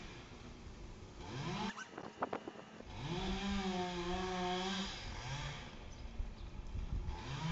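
Chainsaw revving in bursts: its pitch climbs, holds high for about two seconds and drops back, with a short rev just after and another climb near the end. A few sharp knocks come about two seconds in.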